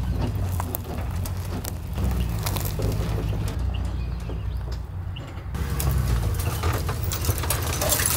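Pickup truck engine running at low revs while backing a boat trailer, a steady low rumble with scattered clicks and crackles over it.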